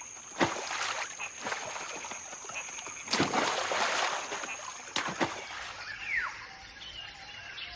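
Water splashing as macaques leap into a river and swim across: a few splashes, the longest about three seconds in.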